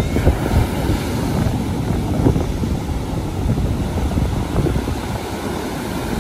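Ocean waves breaking close to shore in a steady rush of surf, with wind rumbling on the microphone.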